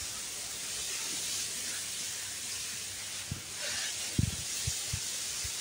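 Steady high outdoor hiss of garden background, with a few soft low thumps about three to five seconds in.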